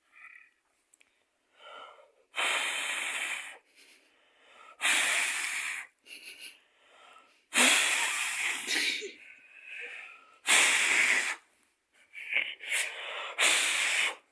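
Dog gasping for air: a run of about five loud, rasping, wheezing breaths, each about a second long, with short gaps between them.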